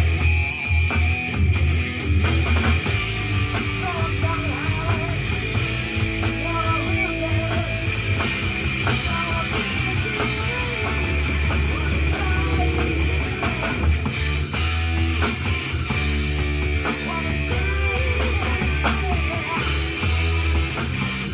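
Drum kit played along to a rock song, with steady rhythmic drum and cymbal hits over electric guitar and the rest of the band.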